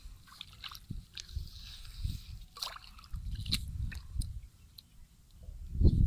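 Hands squelching and sloshing in wet mud and shallow muddy water, pressing and groping through the mud in irregular soft thuds and smacks, the loudest one near the end.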